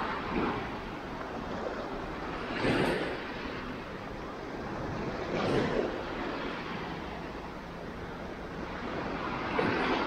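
Small waves breaking and washing up onto a sandy shore, with a louder wash about every three seconds over a steady rush of surf.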